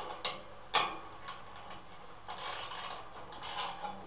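Hand tool backing out a screw from a torpedo heater's sheet-metal radiation shield: two sharp metallic clicks in the first second, then a stretch of rapid clicking and rasping.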